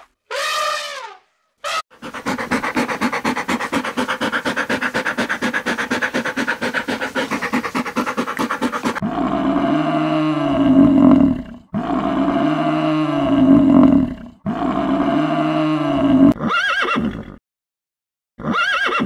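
A run of animal calls: a brief elephant trumpet at the start, then a long, rapidly pulsing call, then three long, low bellows from a water buffalo, and horse whinnies near the end.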